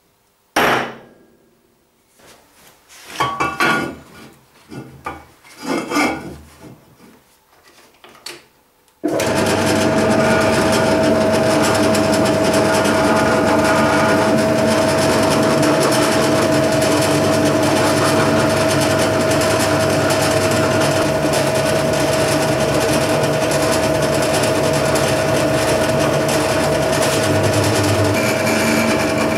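A few scraping and tapping strokes of a small hand tool marking a steel bar, with one sharp hit near the start. About nine seconds in, a bench drill press starts up loud and runs on steadily with a constant whine while the bit cuts into the steel bar.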